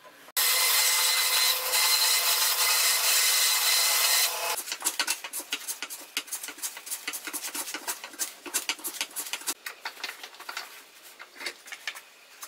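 A loud steady rushing noise for about four seconds. Then a metal hand plane shaving wood in a quick run of short rasping strokes.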